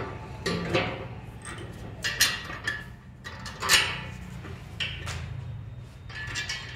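Steel gym-frame parts clinking and knocking together as they are handled and fitted, several separate sharp metal clanks over a steady low hum.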